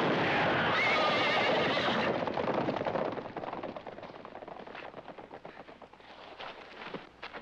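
A horse whinnies over galloping hoofbeats. The hoofbeats fade away from about three seconds in.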